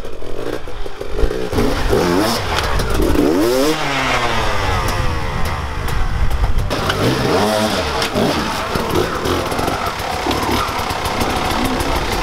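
Enduro dirt bike engines revving up and down again and again in short throttle bursts as the bikes climb over rocks and ledges in a stream bed.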